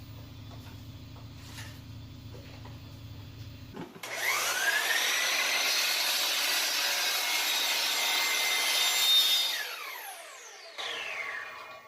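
Electric miter saw starting about four seconds in, its motor whine rising to speed, then cutting off a piece of wood. The motor spins down with a falling whine near the end.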